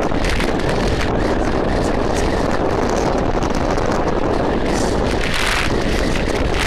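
Car driving fast through a series of corners, heard from on board: a steady rush of wind buffeting the microphone over the car's engine and road noise, with a brief louder gust a little past five seconds in.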